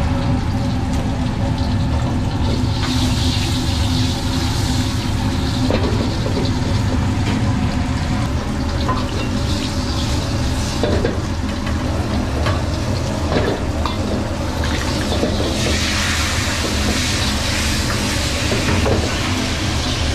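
A whole fish pan-frying in oil in a wok: steady sizzling over a constant low hum from the kitchen range, with scattered clicks of utensils against the wok. The sizzling grows louder in the last few seconds.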